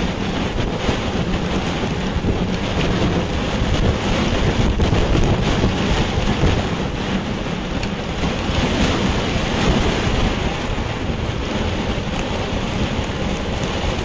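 Heavy rain and strong wind on an outdoor webcam microphone: a loud, steady hiss of rain over a low rumble of wind buffeting the microphone.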